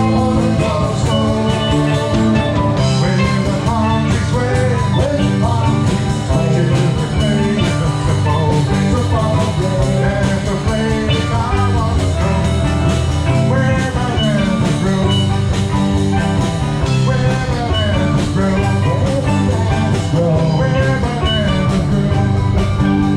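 A live band plays an instrumental passage: guitar and steel drums carrying the melody over bass guitar and a drum kit.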